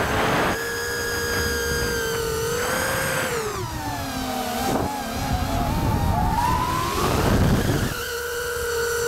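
FPV quadcopter's electric motors heard from the onboard action camera: a steady high whine that drops in pitch about three and a half seconds in, wavers low for a few seconds, then climbs back up near the end as the throttle changes. Bursts of wind rush on the microphone come and go.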